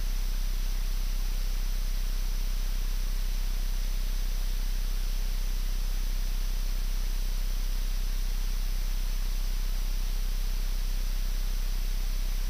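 Steady cockpit noise of a Challenger 300 business jet while the right engine finishes its start: an even hiss over a low, constant hum, with no change in pitch or level.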